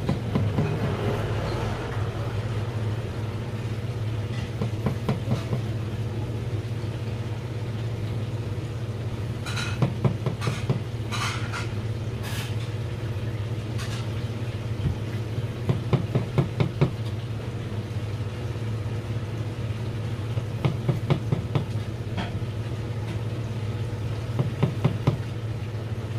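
Steady low machine hum, with short runs of quick soft knocks from a sashimi knife slicing a cutlassfish fillet against a plastic cutting board.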